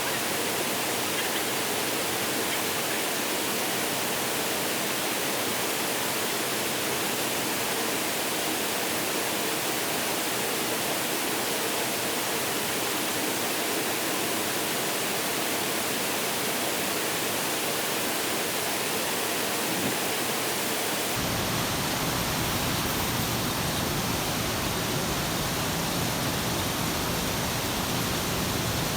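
Steady rushing water noise, an even hiss with no breaks. About twenty seconds in, a deeper low rumble joins it and stays.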